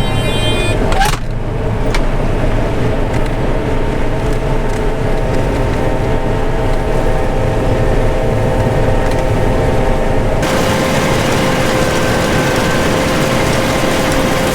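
John Deere 9500 combine's diesel engine running steadily under harvest load, a low rumble with a steady hum. A short high tone sounds right at the start, and a knock comes about a second in.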